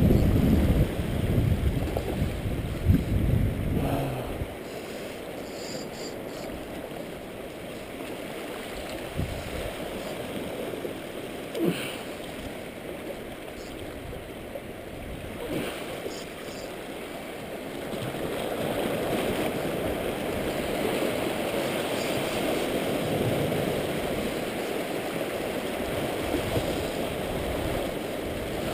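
Seawater washing and lapping against shoreline rocks, with wind buffeting the microphone for the first few seconds. The wash grows louder about two-thirds of the way through, and a couple of brief clicks sound near the middle.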